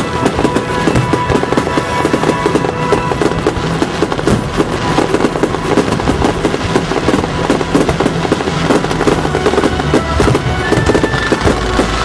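A fireworks display firing without a break: a dense, overlapping run of bangs and crackles from aerial shells, rising comets and ground-fired mines.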